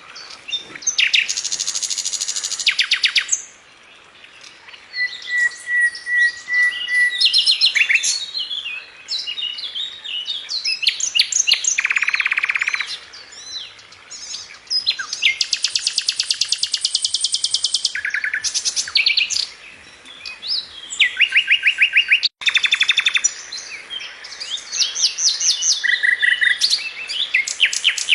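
Songbirds singing: fast trills of rapidly repeated notes, each lasting a second or two, alternate with scattered chirps and a short steady whistle.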